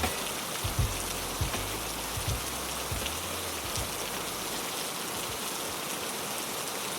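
Steady rain falling, an even hiss of raindrops. A few low thumps sound in the first four seconds, then the rain runs on alone.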